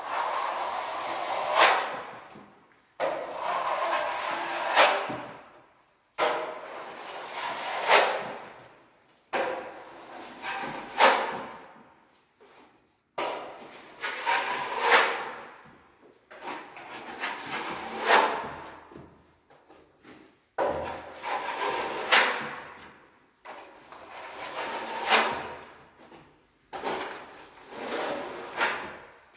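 A wide skimming blade scraped across a wall being skim-coated, in long strokes about every three seconds, each scrape rising to a sharp rasp near its end.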